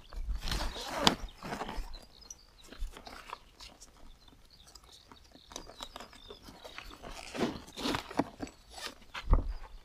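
Nylon straps being pulled through the loops of a fabric motorcycle saddle bag: irregular rustling and scraping of webbing and bag fabric with small clicks. The handling comes in bursts near the start and again near the end, with a quieter stretch in the middle.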